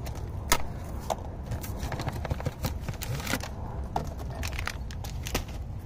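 Scattered light clicks and knocks of a removed stabilizer bar link and tools being handled, over a steady low rumble.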